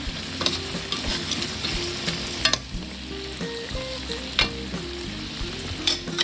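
A coconut-milk (gata) sauce with pieces of fish boiling hard in a pot: a steady bubbling sizzle, with a few sharp pops.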